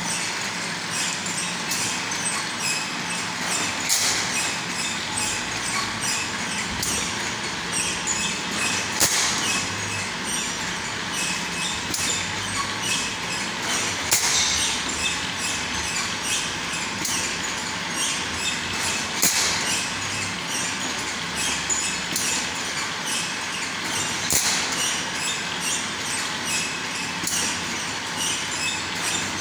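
Industrial stick ice cream (ice candy) machine running: a steady mechanical clatter from its conveyor and drive, with a louder stroke about every five seconds.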